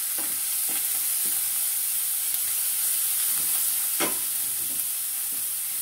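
Minced garlic sizzling steadily in hot oil in a frying pan while a wooden spatula stirs it, with a few light scrapes and taps against the pan and one sharper knock about four seconds in.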